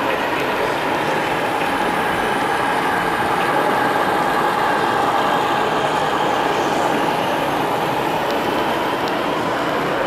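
Model diesel locomotives running on a layout, pulling a freight train: a steady, even running sound with a faint steady drone.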